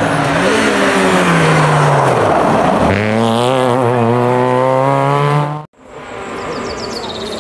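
Rally car engine at full throttle, its pitch climbing, dipping briefly about two and a half seconds in, then climbing again. It cuts off suddenly about three-quarters of the way through, and a quieter engine follows.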